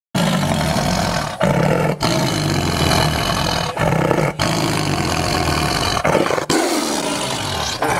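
Big cats roaring, loud and sustained, in a string of short clips joined by abrupt cuts.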